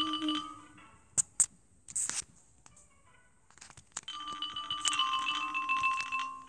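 Short chiming musical jingles from a children's story app: one fading out just after the start and another starting about four seconds in, with a few sharp clicks between them.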